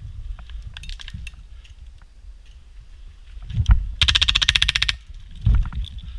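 Airsoft gun firing one rapid full-auto burst of evenly spaced shots, lasting just under a second, about four seconds in. Dull low thumps come just before and after the burst.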